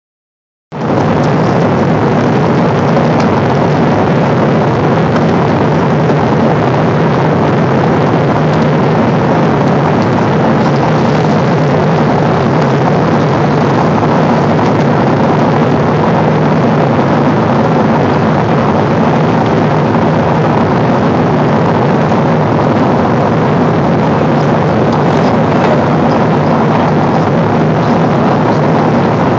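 Steady jet engine and airflow noise inside the cabin of a Boeing 777 in cruise flight, with a low hum under the rushing sound. It starts about a second in.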